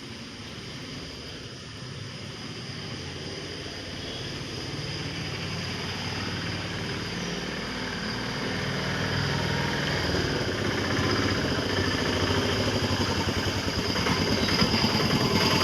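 A motor engine running and growing steadily louder as it comes closer.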